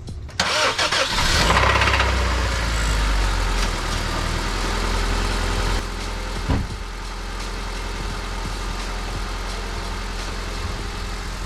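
Honda car engine cranking and catching about half a second in, running louder for a couple of seconds, then settling to a steady idle, with a single short thud about six and a half seconds in. The owner diagnoses the engine's problem as a rod knock.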